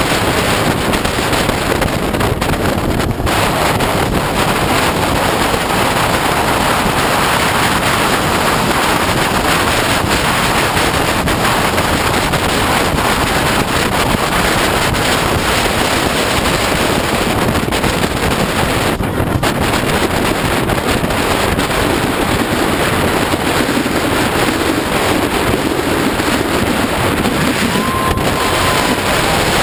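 Steady wind rush buffeting the microphone of a camera mounted on a motorcycle moving at road speed, mixed with the motorcycle's engine running underneath.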